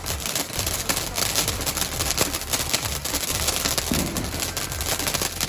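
Firework crackling: a dense, rapid run of sharp pops over a continuous hissing spray.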